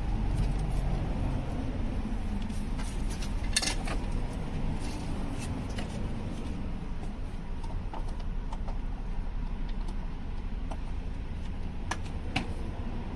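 Light clicks and clinks of car door trim parts and plug connectors being handled during refitting, with a few sharper clicks a few seconds in and near the end, over a steady low hum.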